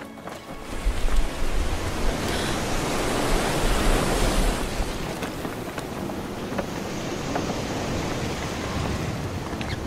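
Waves of a rough sea and wind, swelling loud about a second in with a deep rumble, then running on steadily.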